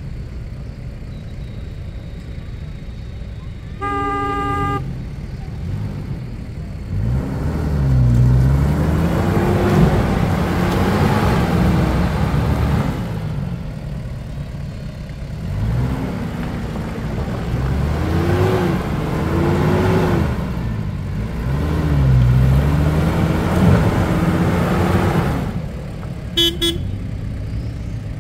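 Off-road vehicle engine revving up and falling back again and again, its pitch rising and dropping repeatedly. A short car-horn toot sounds about four seconds in, and another brief beep near the end.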